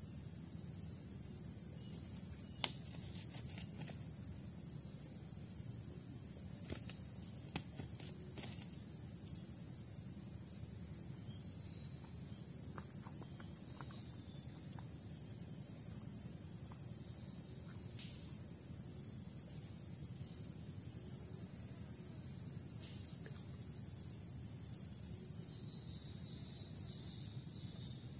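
Steady, high-pitched chorus of insects: a continuous shrill buzz that does not change, over a low rumble, with a few scattered sharp clicks.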